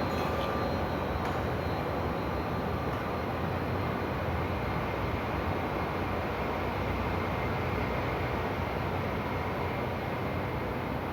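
A steady, even roar with a faint hum under it, holding one level throughout.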